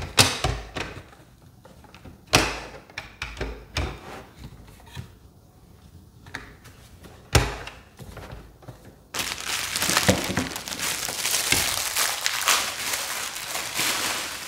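A few sharp knocks and clicks of hard plastic as a monitor's stand neck is fitted and seated into the bracket on the monitor's back. From about nine seconds in, a plastic bag crinkles steadily as it is handled and opened.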